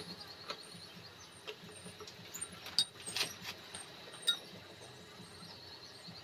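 A few scattered light metallic clicks and knocks as tools and gearbox parts are picked up and set down, over a low steady background hum.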